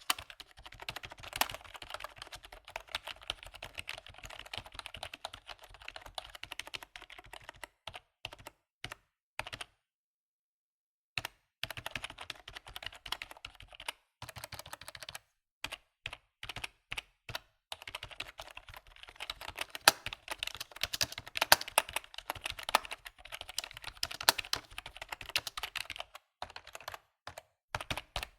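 Computer keyboard typing: fast runs of key clicks, broken by a few single keystrokes and a pause of about a second roughly ten seconds in, then louder, denser typing in the second half.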